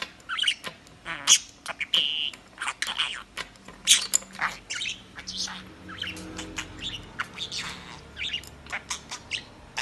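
Budgerigar chattering in a quick, busy string of short chirps, squawks and clicks.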